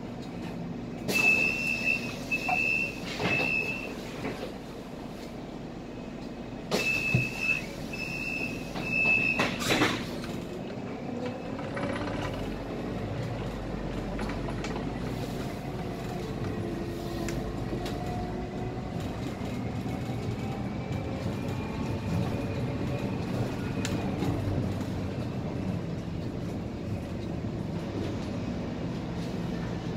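Scania K320 IA articulated bus: a high warning beep sounds three times, then three times again, each set with sharp knocks, as the doors work at the stop. After that the diesel engine pulls the bus away, its pitch rising as it gathers speed, and settles into steady running.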